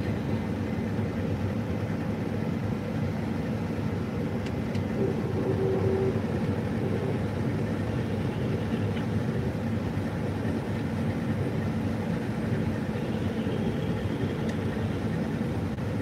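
New Holland CR8.90 twin-rotor combine running steadily under load while harvesting wheat, heard from inside the cab as a constant hum of engine and threshing machinery.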